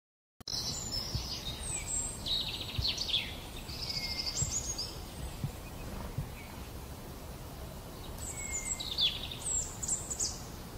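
Small songbird singing several short high trilling phrases in three bursts, over a steady low outdoor rumble.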